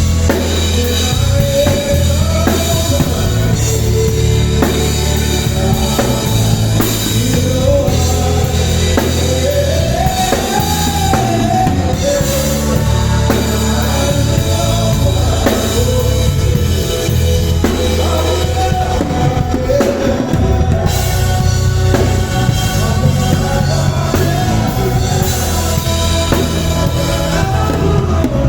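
A live band plays together: drum kit, bass guitar and keys, with a wavering lead melody line over a heavy, steady bass.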